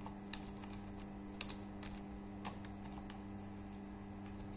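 A handful of scattered computer keyboard keystrokes, single sharp clicks, over a steady low hum.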